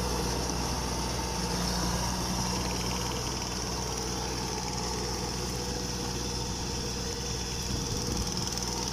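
Kubota DC105X combine harvester's diesel engine running steadily, with over 1,600 hours on it and still running smoothly.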